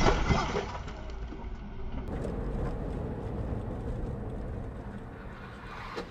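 A loud vehicle collision impact with clattering debris in the first half-second, dying away. Then steady road and engine noise from a car driving.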